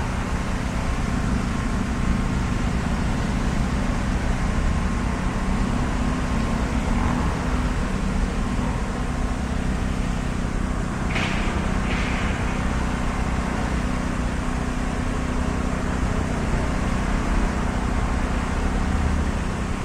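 Steady background drone of road traffic with a constant low hum. Two short, higher-pitched sounds come close together a little past halfway.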